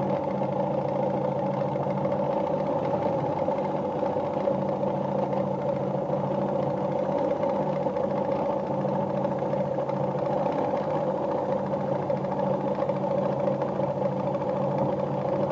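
Electric-motor-driven Jones sewing machine running steadily at an even speed, sewing a continuous line of a built-in decorative pattern stitch.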